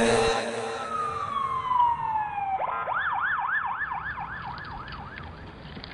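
Music stops, and a single tone glides steadily downward for about two seconds. Then an ambulance siren yelps in rapid up-and-down sweeps, about four a second, and fades away about a second before the end.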